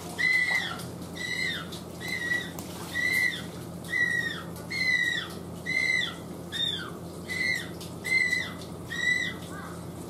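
Newly fledged Humboldt penguin chick calling over and over, about one call a second, each high-pitched call arching and then dropping at its end. It is still a juvenile's young voice, not yet the deep, thick call of an adult. The calls turn fainter and shorter near the end.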